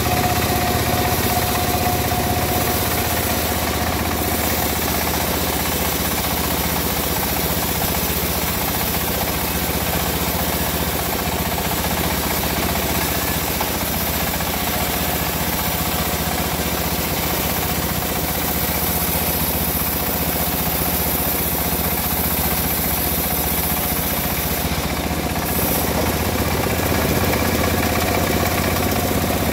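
A machine engine running at a steady speed, without revving or pauses, with a thin steady whine above it that drops out after a couple of seconds and returns about halfway through.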